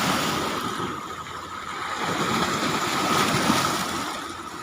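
Strong high-tide sea waves washing and breaking along the shore, with wind buffeting the microphone. The wash swells and eases, loudest about three seconds in.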